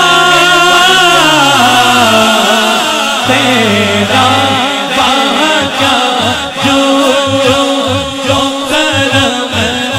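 Devotional naat singing: a drawn-out melodic vocal line that glides downward over the first four seconds, over a lower held vocal layer. From about five seconds in, a steady rhythmic pulse runs under the voices.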